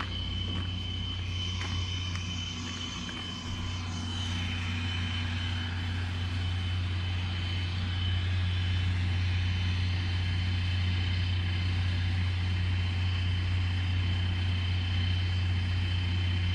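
Chichibu Railway 7500-series electric train standing at the platform with its onboard equipment running: a steady low hum and a constant high-pitched whine.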